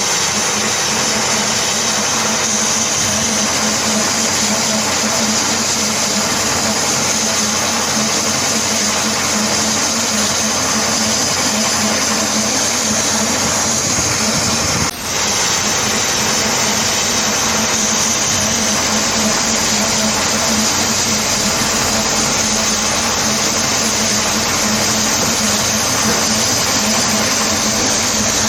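Diamond wire stone-cutting saw running steadily, a constant motor hum under a loud hiss of the wire grinding through stone. There is a brief break about halfway through, then the same noise carries on.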